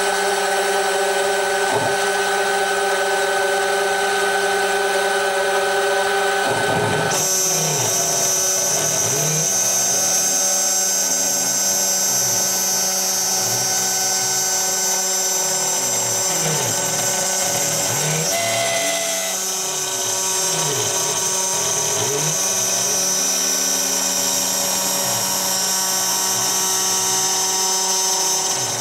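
Small CNC milling machine cutting an engine cam lobe from a metal blank with an end mill: a steady machine whine with repeated up-and-down pitch sweeps as the tool moves. About seven seconds in, a higher, harsher cutting tone sets in and carries on.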